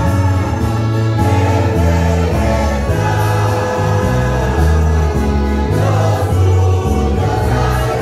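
A church choir singing a hymn to an ensemble of mandolins and guitars, over a strong, steady bass line.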